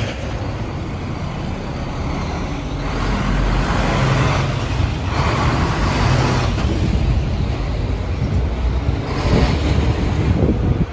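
City street traffic noise: vehicles passing, swelling and fading about three times over a steady low rumble.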